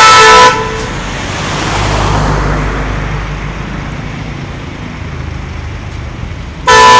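A loud vehicle horn blares and cuts off about half a second in. A box truck then rumbles past with the hiss of road traffic, and near the end the horn blares again.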